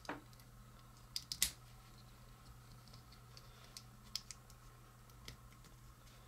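Small hard-plastic clicks and snaps as the parts of a Transformers BotBots mini figure are turned and pressed into place by hand. A quick cluster of clicks about a second and a half in is the loudest, with a few fainter single ticks later, over a faint steady hum.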